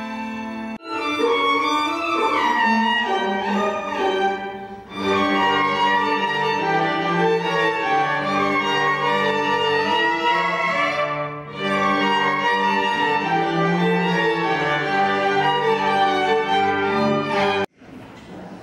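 Violins playing a piece together with other bowed strings, long sustained notes in several voices. The music dips briefly twice and cuts off abruptly near the end.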